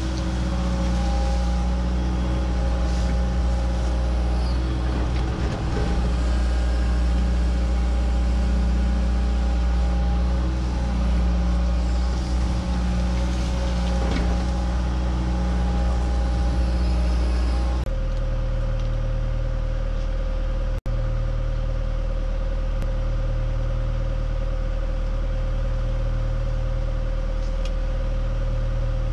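John Deere 120 excavator's diesel engine running steadily while digging, with a few faint knocks. About two-thirds of the way through the engine note changes abruptly, and it drops out for an instant shortly after.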